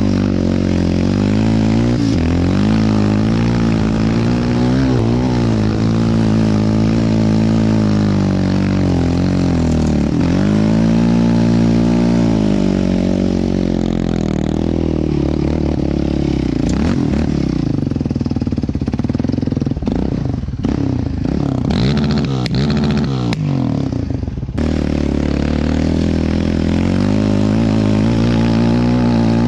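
Yamaha Raptor 700R quad's single-cylinder four-stroke engine revving up and down under throttle as it is ridden and drifted through snow. Partway through, the engine note goes rough and uneven for several seconds, broken by knocks, then picks up steady revving again.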